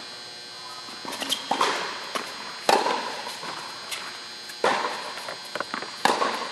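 Tennis rally on an indoor court: four sharp racquet-on-ball pops and ball bounces, spaced about one to two seconds apart, each echoing in the large hall.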